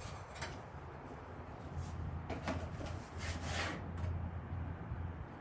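Handling noises from a cardboard box of baking soda being picked up and tipped over a plastic cup: a few short rustles and scrapes, the longest near the end, over a low steady hum.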